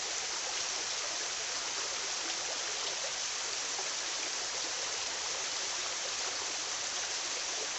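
River water flowing over rocks: a steady, even rush.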